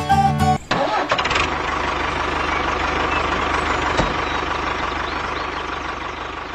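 Music cuts off abruptly about half a second in. It is followed by an engine idling steadily, with a fast low beat under a hissy background, slowly getting quieter.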